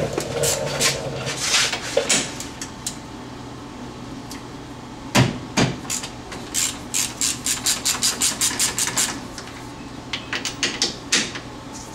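Hand ratchet clicking as it turns a brake caliper bolt loose on a UTV's front hub, in runs of quick even clicks at about four a second, with a couple of louder metal knocks from the tools about five seconds in.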